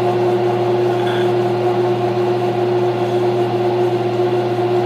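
Grizzly G0602 bench metal lathe running steadily at 560 RPM, its motor and drive giving a constant hum with a few fixed tones, as the tool is fed in by hand towards the spinning cylinder.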